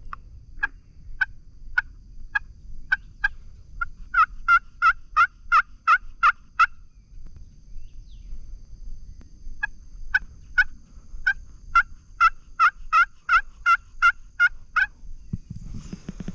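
Pot-style friction turkey call worked with a wooden striker, yelping like a hen turkey to draw in a gobbler. There are two runs of yelps about three seconds apart. Each starts with spaced notes and quickens into a faster, louder string.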